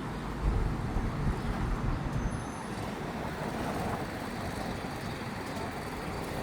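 City street traffic: vehicles passing on a busy boulevard, a steady rumble with a heavier low rumble in the first second or so.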